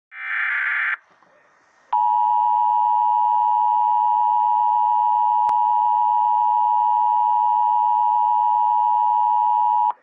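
Emergency Alert System alert through a speaker: a short buzzy burst of the digital SAME header data, a pause of about a second, then the long steady attention tone for about eight seconds, cutting off abruptly. It signals a National Weather Service Special Marine Warning.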